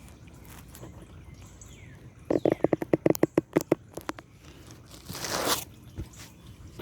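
Oil filter being cut open by hand: a fast run of about a dozen sharp clicks, then a short scraping, tearing noise.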